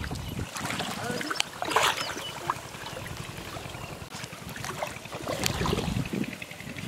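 Shallow water sloshing and splashing as hands grope through it for fish, with a few short sharp sounds about two and five and a half seconds in.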